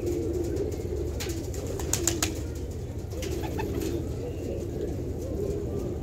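A flock of domestic pigeons cooing, many overlapping voices in a continuous low murmur, with a few sharp clicks about one and two seconds in.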